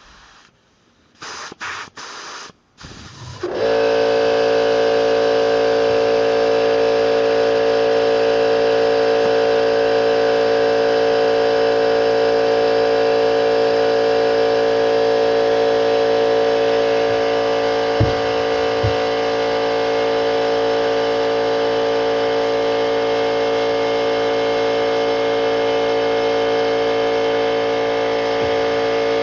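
Electric air compressor kicking on about three and a half seconds in and running steadily with a loud motor hum and hiss as it refills its 21-gallon tank, after a few short spurts of air hiss.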